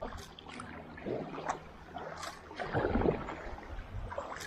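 Kayak paddle strokes splashing irregularly in fast-flowing river water, with the water gurgling and rushing past the hull; the loudest splash comes about three seconds in.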